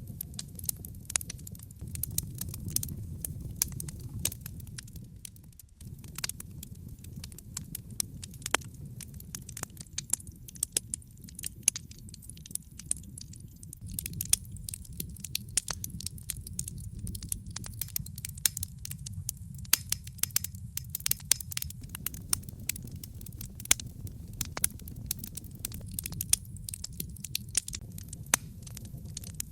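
Wood fire burning in a fireplace: irregular sharp crackles and pops from the burning logs over a low steady rumble of the flames.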